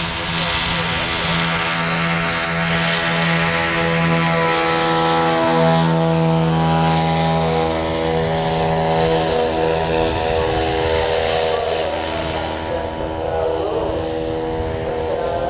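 Lazair ultralight's twin single-cylinder two-stroke engines running as the plane takes off and climbs out, with their propellers.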